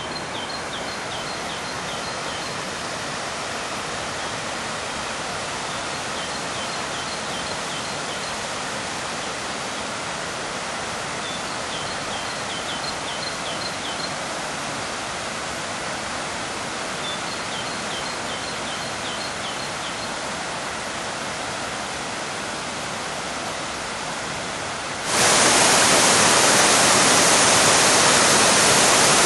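Steady rushing of the Juvankoski waterfall cascading over rock. A songbird sings a short phrase of rapid notes about every six seconds, four times. Near the end the rushing water becomes suddenly much louder and brighter, as when heard right at the falls.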